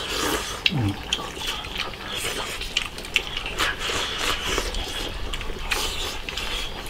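Eating sounds: soup slurped from a bowl and chopsticks clicking against ceramic rice bowls, many short clicks, with a brief murmur of voice about a second in.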